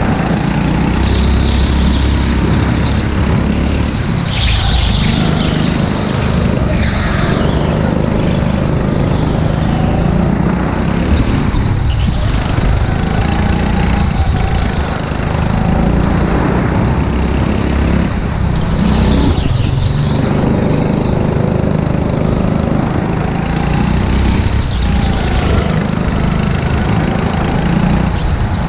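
Go-kart's small petrol engine running hard at close range. Its pitch rises and falls as the kart speeds up and slows for the corners.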